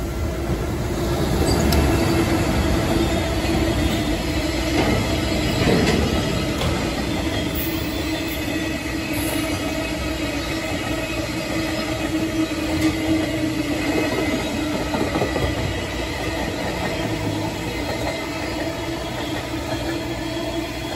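A long freight train rolling past: Taki 1000 oil tank wagons and then empty container flatcars, their steel wheels running and clattering on the rails with a steady ringing tone.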